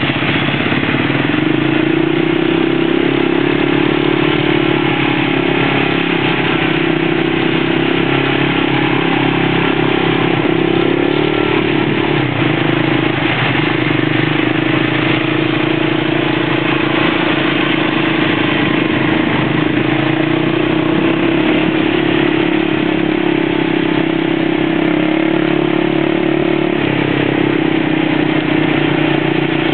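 ATV (four-wheeler) engine running steadily at low speed, its pitch shifting slightly as the throttle changes, with a brief dip about halfway through.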